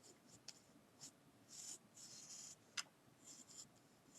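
Faint pencil scratching on paper in a series of short strokes, sketching fur, with one sharper tick a little under three seconds in.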